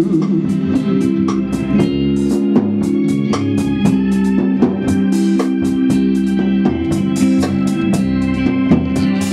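Live band playing an instrumental passage: a keyboard on an organ sound holds sustained chords that change every couple of seconds, with drums keeping a steady beat underneath.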